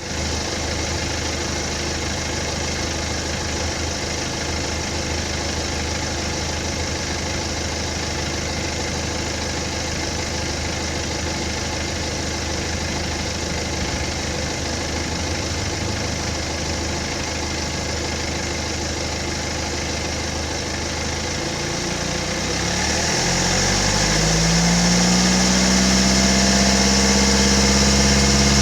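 BMW N47 2.0-litre four-cylinder turbodiesel idling steadily, then about 22 seconds in revved up smoothly and held at a higher, louder engine speed, about 2,000 RPM. The owner suspects the timing chain on this engine.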